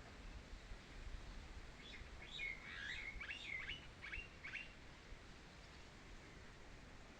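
A songbird singing one short phrase of quick chirps and brief whistled slurs, starting about two seconds in and lasting nearly three seconds, over a faint low rumble.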